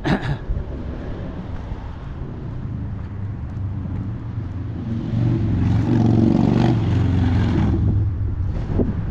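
A car passing on the street, growing louder about halfway through and fading over a few seconds, over a steady low traffic rumble. A short knock right at the start.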